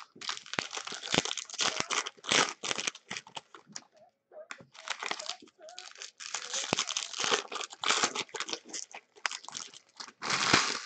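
Foil wrapper of a Bowman baseball card pack being torn open and crinkled by hand, in clustered crackling bursts with a short pause about four seconds in and the loudest burst near the end.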